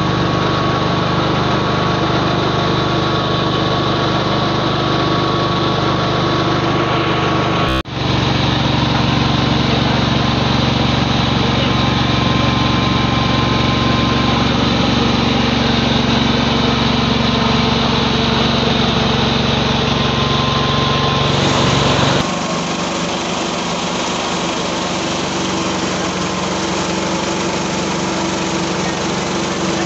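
Small petrol engine running steadily at speed, driving a KD 550 HM mini rice mill while rice is milled and pours from its chute. The sound drops out for a moment about eight seconds in and changes tone about 22 seconds in, where the shots are joined.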